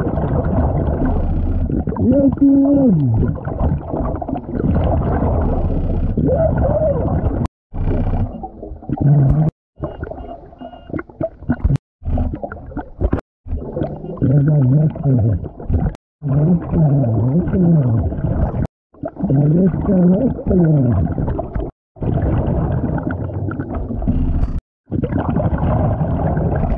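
Muffled underwater noise recorded during a lake dive, with wavering low tones that glide up and down. It is broken by abrupt cuts every few seconds.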